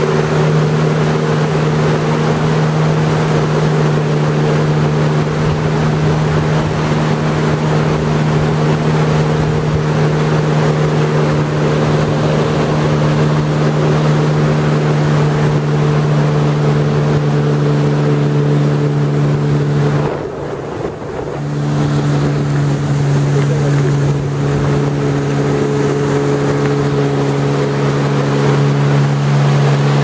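Jet ski engine running at a steady cruising speed over a rushing hiss. About two-thirds of the way through, the engine note drops away for about a second, then comes back at the same pitch.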